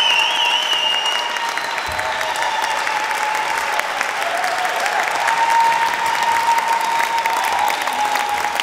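Audience applauding, with long held whoops from the crowd over the clapping.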